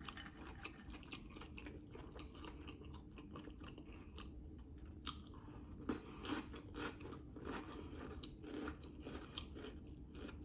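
A person chewing a sausage dog topped with grinder salad: faint wet chewing with soft crunches and mouth clicks, more frequent in the second half.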